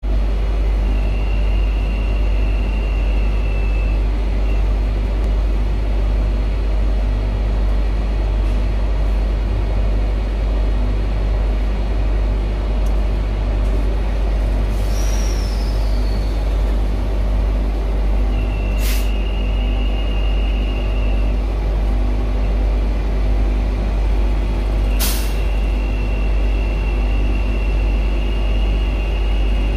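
Steady low drone of a WAG9 electric locomotive's running machinery heard inside the cab. A high steady tone sounds three times for a few seconds each, with a sharp click just before the last two and a short hiss about halfway through.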